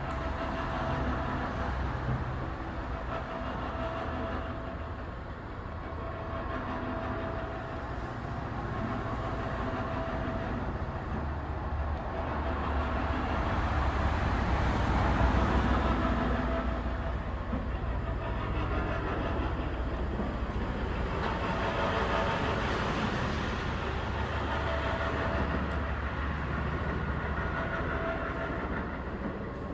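Food-processing machinery, such as a screw conveyor, running steadily with a constant whine. It grows somewhat louder around the middle.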